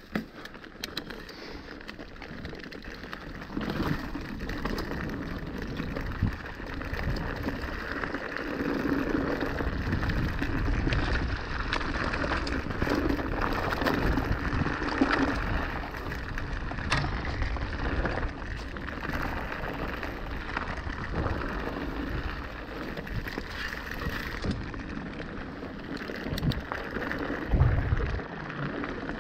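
Mountain bike riding down a rocky trail: tyres crunching and skittering over loose stones, with frequent knocks and rattles from the bike, louder from about four seconds in.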